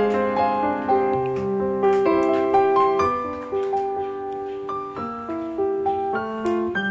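Background piano music: a gentle melody of single notes and soft chords, a new note every half second or so.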